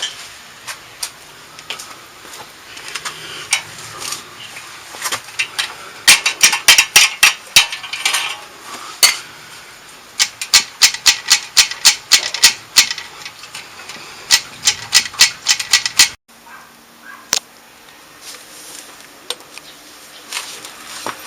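Rapid metallic knocks and clanks, several a second in bursts for about ten seconds, as a stuck Harley-Davidson muffler is worked loose from its exhaust pipe; quieter rubbing and clinking before and after. The knocking stops suddenly about two-thirds of the way in.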